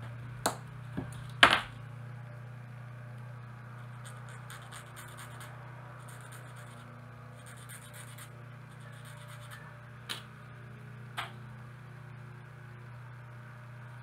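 Light scratching and scraping from fine hand work on a small piece of plastic card, in short patches, with a few sharp clicks (the loudest about a second and a half in, two more near the end), over a steady low hum.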